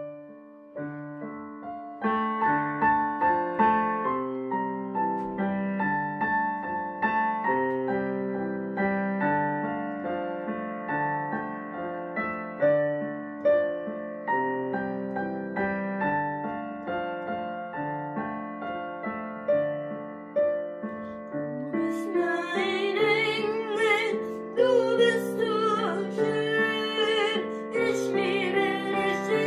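Background music: a piano plays a gentle melody alone, then a voice begins singing over it about 21 seconds in.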